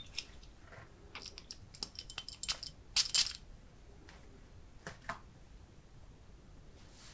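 Hands handling a black glass perfume bottle: scattered small clicks, taps and light rubbing, with a cluster of louder clicks a little under halfway through and a couple more about two-thirds of the way in.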